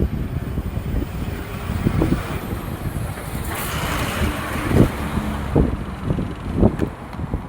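Wind buffeting the microphone in irregular low gusts, with a road vehicle passing by, its noise swelling and fading in the middle.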